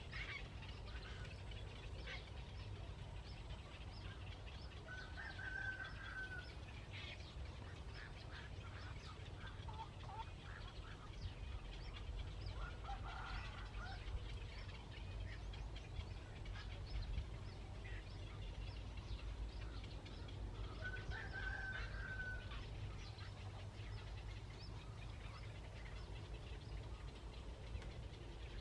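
Scattered short bird chirps and calls over a steady low rumble, with two clearer short calls, one about a fifth of the way in and one about three-quarters of the way through.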